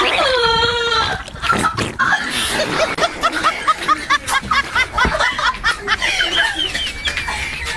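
A wavering, wailing vocal sound, then a long run of quick, high-pitched laughs, about four a second.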